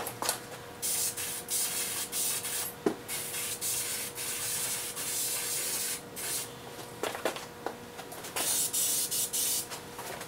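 Duplicolor aerosol spray-paint can hissing in long bursts broken by short pauses as a coat is sprayed across a car fender, with a few faint clicks.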